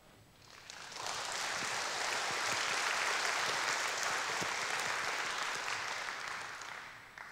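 Audience applauding, swelling over the first second and tapering off near the end.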